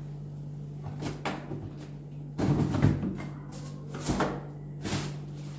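A few knocks and clatters, like household things being handled, the loudest cluster about two and a half seconds in, over a steady low hum.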